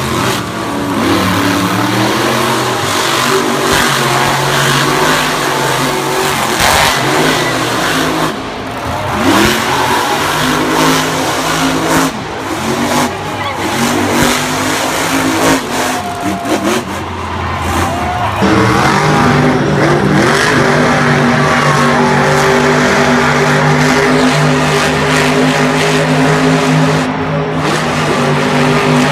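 Monster truck's supercharged V8 engine revving hard, its pitch swinging up and down as it is driven, then held high and steady after a change about 18 seconds in.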